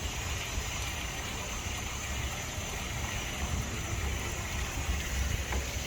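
Steady outdoor background noise with a fluctuating low rumble and an even hiss; no single source stands out.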